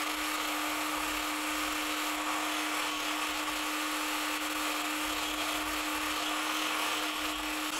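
Red immersion blender with a whisk attachment running at a steady speed, whipping body butter. A steady motor hum with a faint whirring hiss.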